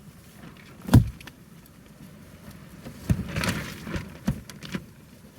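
Flooded lead-acid marine battery bubbling while it charges from a 60-watt solar panel: faint bubbling with scattered small pops and knocks between about three and five seconds in. A single sharp thump comes about a second in.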